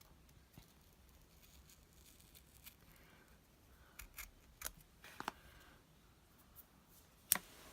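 Small craft snips cutting: a few faint, separate snips about halfway through, and a sharper, louder one near the end.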